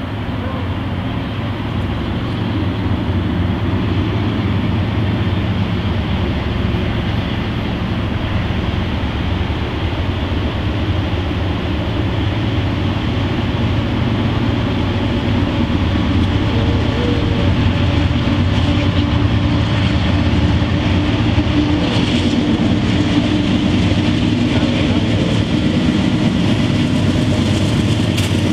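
Diesel-electric freight locomotives approaching with a steady low engine drone and rumble. It grows louder as the lead units come up and pass close near the end.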